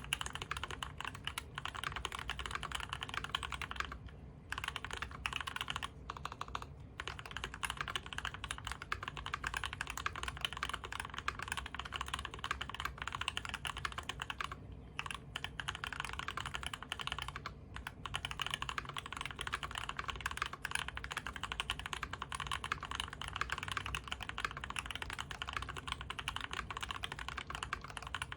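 Steady fast typing on a custom Whale75 mechanical keyboard fitted with U4T tactile switches on a brass plate and GMK keycaps. The clicks come densely, broken by a few short pauses.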